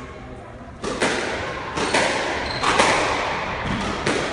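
Squash rally: the ball struck by rackets and rebounding off the court walls, heard as sharp hits in quick pairs about once a second, starting about a second in, with a short echo from the enclosed court.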